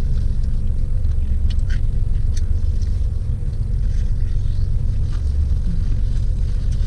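Steady low rumble of an idling car engine heard inside the car's cabin, with a few faint crunches of chewing on crispy fried chicken skin in the first half.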